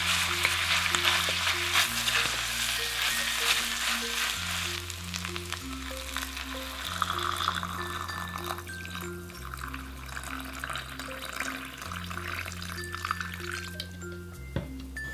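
Cooked rice sizzling in a hot pot as it is stirred in over sautéed abalone for abalone porridge, loudest in the first few seconds. Water poured in about seven seconds in. Light background music plays throughout.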